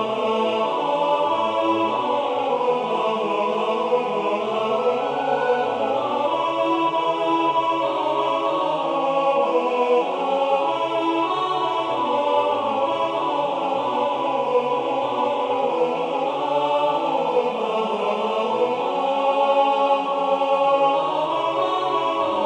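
Four-part choir singing a hymn in steady block chords, as a part-learning track for the tenor section.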